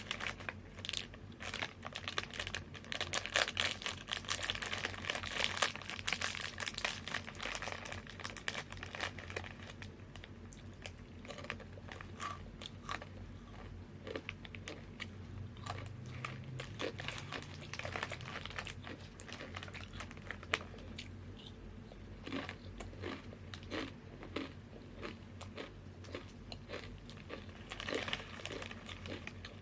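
Crunchy chips being bitten and chewed close to the microphone. A dense run of crackling crunches at first thins out after several seconds to scattered crunches, then picks up again near the end.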